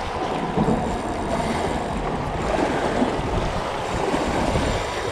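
Wind buffeting the microphone over choppy open water: a steady rushing noise with waves lapping.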